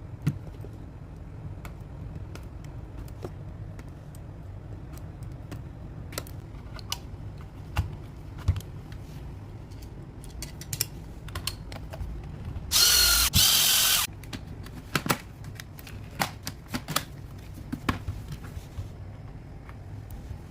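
Scattered clicks and taps of hand work on a cordless vacuum's battery pack, with a loud whir of a small power tool for about a second and a half a little past the middle, in two short runs.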